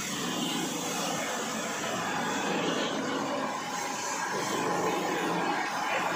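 Tanker-mounted sanitizer sprayer running steadily: its engine-driven pump and the pressurised disinfectant spray from the hose make an even, continuous rushing noise.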